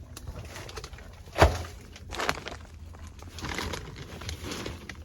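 Knocks and scuffing from someone moving about in a crawl space, with one sharp knock about a second and a half in and stretches of scraping and rustling around it.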